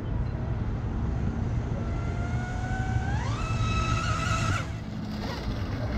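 Electric RC rigger boat's motor and propeller whining at speed. The whine climbs in pitch about three seconds in, holds briefly and then cuts off abruptly, over a steady low rumble.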